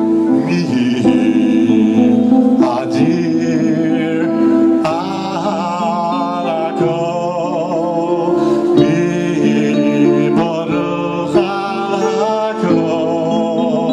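A man singing into a microphone over a live band with keyboard, his held notes wavering with vibrato.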